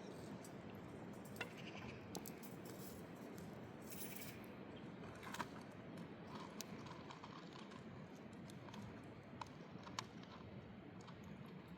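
Scattered light clicks and taps, a few sharper ones spaced seconds apart, over a faint steady rushing background.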